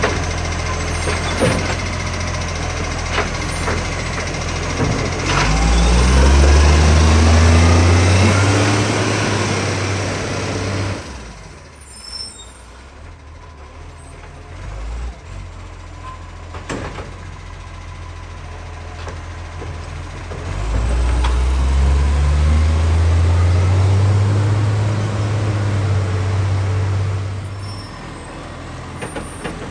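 Garbage truck's diesel engine with a huge exhaust leak, running and twice revving up for several seconds at a time, each time dropping back sharply.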